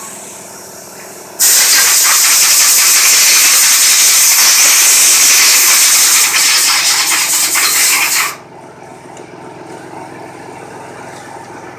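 Loud blast of compressed air hissing for about seven seconds, starting abruptly a little over a second in and cutting off suddenly, over the steady hum of the CNC milling machine.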